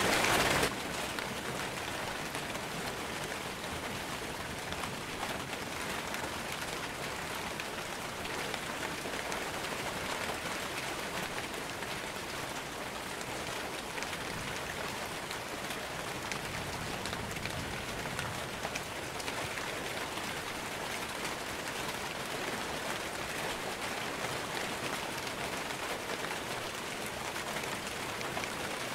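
Rain falling steadily: an even hiss with scattered ticks of individual drops. A louder stretch of rain cuts off abruptly less than a second in.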